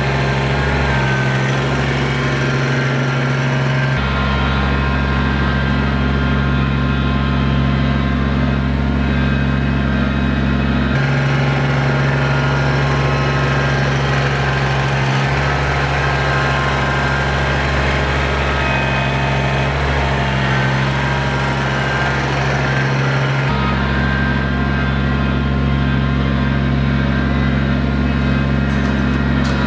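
Kubota compact tractor's diesel engine running steadily under work. Its low tone shifts abruptly a few times.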